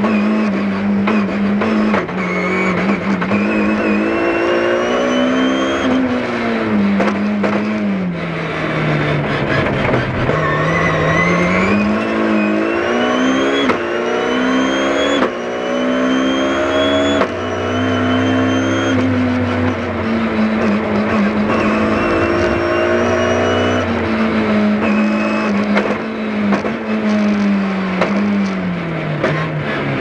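BMW rally car's engine heard from inside the cabin, driven hard: it revs up, drops in pitch at each shift or lift for a corner, and climbs again, over and over. A thin high whine rises and falls with it.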